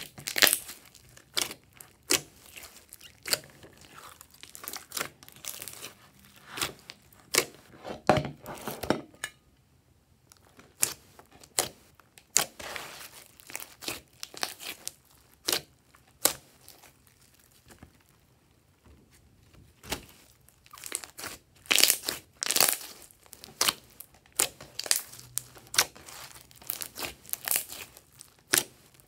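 Glossy slime squished, poked and stretched by hand, making a run of irregular wet clicks and pops, with two short quieter pauses.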